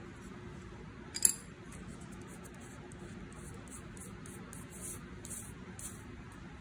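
A pencil set down on a hard surface with one sharp click about a second in, then fingers brushing lightly over paper in several short strokes.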